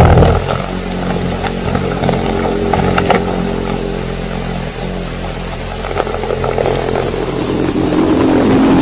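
Steady mechanical drone recorded from a hole in the ground: a low hum of even tones with scattered ticks and rattle, growing louder near the end. The uploader takes it for a compressor running to pump water out from underground.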